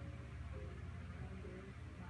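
Soft background music with slow, held notes, over the low steady snoring of Mimi, a sleeping pet.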